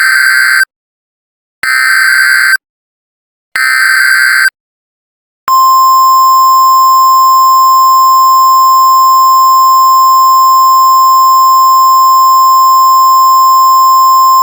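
Emergency Alert System header: three roughly one-second bursts of warbling data tones, about a second apart, then a long, steady, single-pitch alert tone starting about five seconds in.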